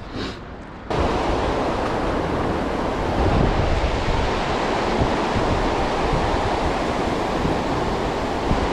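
Steady, loud rushing noise that starts abruptly about a second in and holds even throughout.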